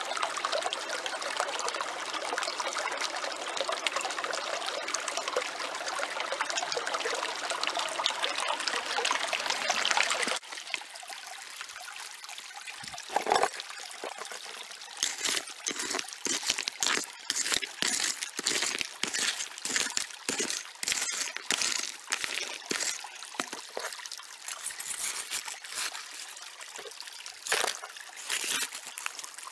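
Small creek running over stones, a steady rush of water. About ten seconds in it cuts away to a small hand shovel digging into rocky gravel and tipping dirt into a plastic gold pan: repeated scrapes and knocks, one sharper knock among them.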